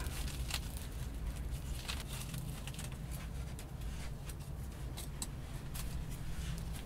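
Scattered faint clicks and light crackling as wavy-leafed soap plant bulbs are pushed onto a bed of hot coals with a stick, over a low steady hum.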